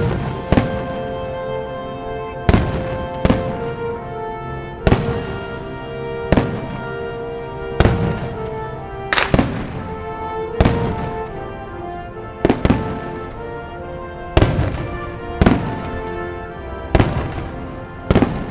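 Aerial firework shells bursting, a sharp bang every one to two seconds, some in quick pairs. Music with long held tones plays under them.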